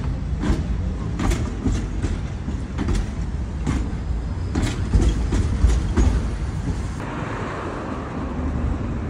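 A 71-623 tram passing: its wheels knock over rail joints in a quick, irregular series over a steady low rumble for about six seconds. Then the knocks stop and a steadier hiss is left.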